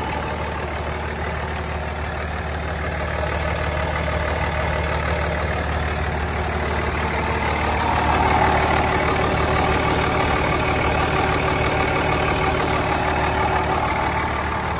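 2004 Dodge Ram 3500's 5.9 Cummins inline-six turbo diesel idling steadily, heard close up under the open hood, slightly louder about eight seconds in as the microphone passes the front of the engine.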